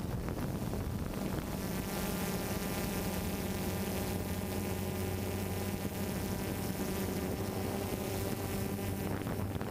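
DJI Phantom 2 Vision+ quadcopter's motors and propellers in flight: a steady buzz over a low hum.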